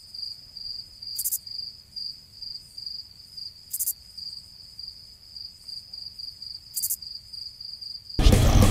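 A high, steady cricket chirping trill, with a few faint clicks, then a loud burst of noise lasting about a second near the end.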